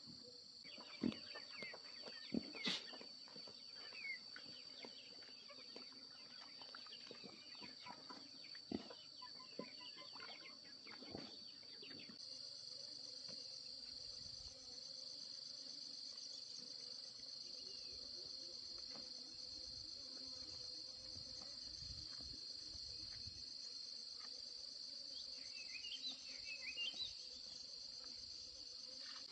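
Steady, high-pitched drone of insects shrilling, with a few scattered knocks in the first dozen seconds and a couple of short chirps about four seconds before the end.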